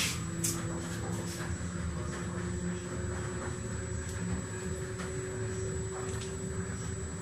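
Electric honey extractor running with a steady motor hum. A couple of light knocks in the first second as a honey frame is handled.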